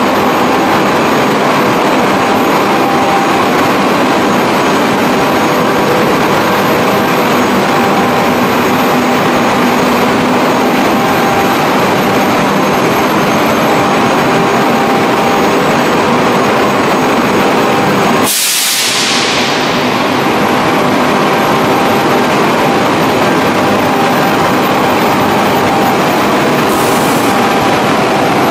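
Industrial spray-drying plant running: a loud, steady rushing hum of fans and air through the ducting, with a few steady tones. The sound dips briefly about two-thirds of the way through.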